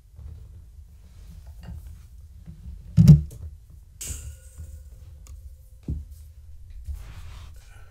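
A heavy thump, then about a second later a sharp metallic clank with a short ringing, and another thump near the end: a cat jumping against and onto a wire exercise pen, its metal panels rattling.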